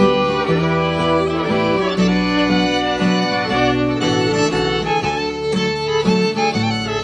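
Old-time string band playing an instrumental fiddle tune live: fiddle lead over guitar and string bass backing, going steadily throughout.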